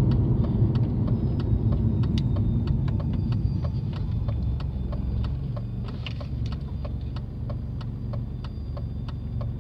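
BMW E46 316i's 1.9-litre four-cylinder engine running at low revs, heard from inside the cabin, slowly getting quieter as the car slows. A steady ticking, about two or three ticks a second, runs alongside it.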